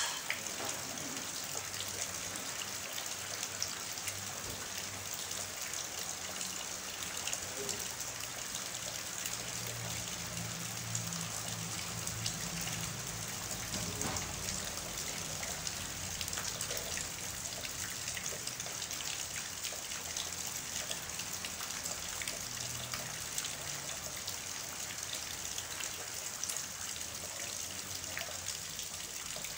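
Heavy rain falling steadily on a flooded yard, spattering on standing water and into a water-filled tub, with water running.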